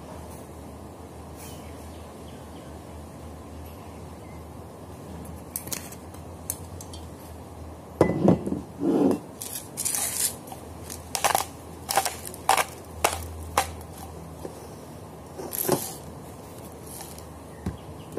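Glass bottles and a jar being handled and set down on a tabletop: a quiet stretch, then from about halfway a run of short knocks and clinks, against a steady low hum.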